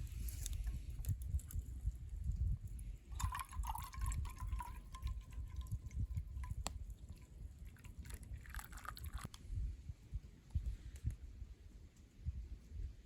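Liquid pouring and dripping, with a thin steady tone for a few seconds in the middle and a second short pour near the end.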